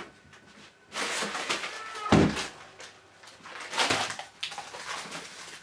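Frozen bait packs and plastic bags rustling and knocking as they are rummaged through in a chest freezer, with one loud thump about two seconds in.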